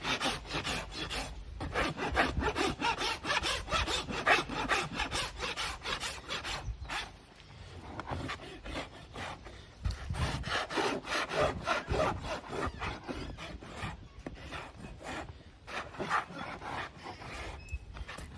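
A farrier's rasp filing a pony's hoof wall in repeated rhythmic strokes, with a couple of short pauses. It is levelling the inside of the hoof, which is still high on a toe-in foot.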